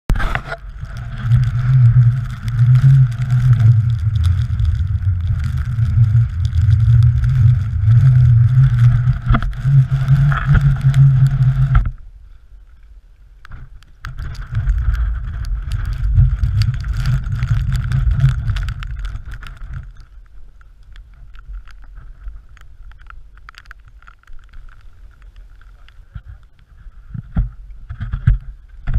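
Strong wind buffeting a GoPro's microphone, a heavy low rumble that drops away about twelve seconds in, returns for several seconds, then eases off after about twenty seconds. A few knocks sound near the end.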